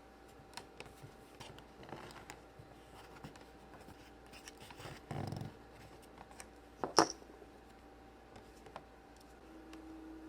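Small clicks and taps of plastic Play-Doh toys and tools being handled, with a short rustle about five seconds in and a sharp click about seven seconds in.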